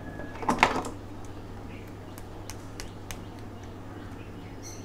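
Hands and pliers handling a small power-supply module with a metal heatsink on a circuit board. There is a short, loud scrape about half a second in, then a few light clicks, over a steady low hum.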